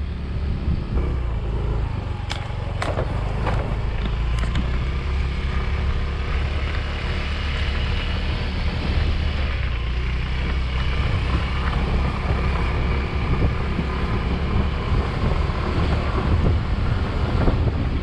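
Small motorcycle running steadily while riding along a bumpy dirt road, its engine and wind on the microphone making a continuous low rumble. A few sharp clicks or knocks come about two to four seconds in.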